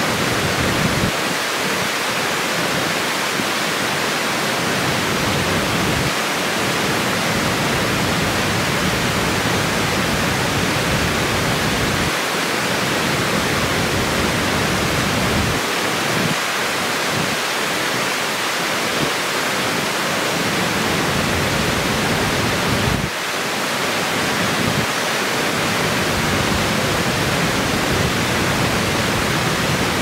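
Water pouring over a low concrete weir and rushing through rocks below it: a steady, unbroken rush of falling water.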